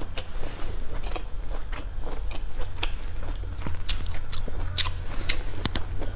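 Close-miked chewing of food, with crisp crunching bites at irregular intervals over a steady low hum.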